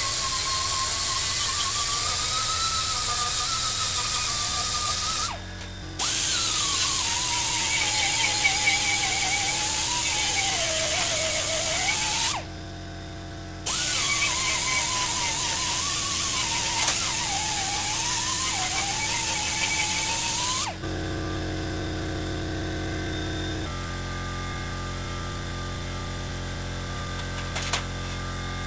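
Pneumatic right-angle grinder with a surface conditioning disc stripping the galvanized coating off thin steel square tubing: hissing air with a high whine that sags in pitch as the disc is pressed on, in three runs with short pauses. After the third run stops, about two-thirds of the way in, a quieter steady hum remains.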